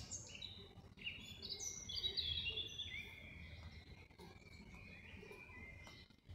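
Wild songbirds singing: a run of quick whistled and chirping notes, many gliding down in pitch, busiest around the middle, over a low steady background rumble.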